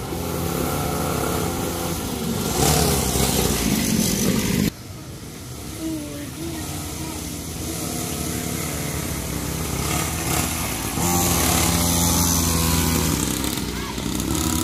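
Small 49cc pocket-bike engines running as children ride the mini bikes, the pitch and loudness shifting as they pass. The sound changes abruptly a little under five seconds in and grows louder about eleven seconds in.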